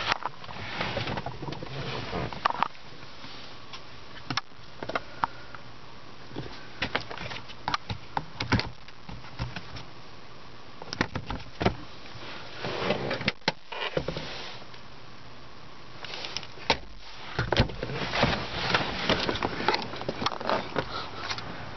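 Handling sounds inside a car's cabin: scattered clicks and knocks from interior fittings, with bursts of rustling.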